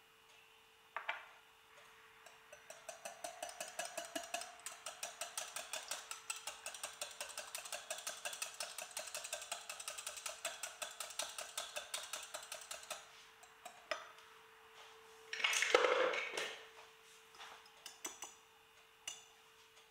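Wire whisk beating egg into fermented milk in a glass measuring jug: a fast, even run of light clicks of the wires against the glass for about ten seconds, then a single louder clatter of metal on glass. A faint steady hum runs underneath.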